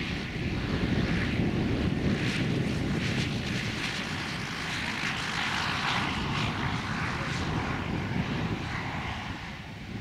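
Cessna 310E's twin six-cylinder piston engines and propellers running at low power as the plane rolls out along the runway after touchdown. The sound is steady and eases slightly near the end as the plane moves away.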